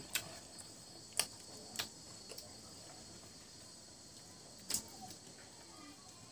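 Quiet eating sounds from a meal of rice and curry eaten by hand off a banana leaf: chewing with a few sharp mouth smacks and clicks, the loudest about a second in and again near five seconds, over a faint steady high-pitched hum.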